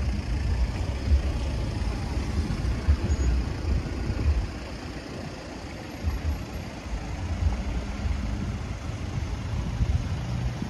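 Road traffic: a van and cars queued at a traffic light with their engines idling, heard as a low, uneven rumble.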